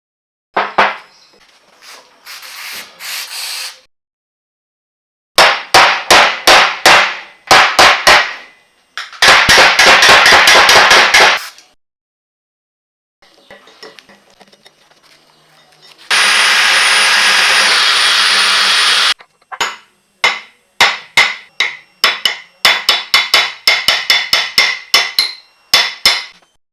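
A hammer striking metal vise parts in a series of sharp blows, separated by abrupt edit gaps, with a fast flurry of strikes about ten seconds in and a dense run of blows near the end. A steady hissing noise lasts about three seconds past the middle.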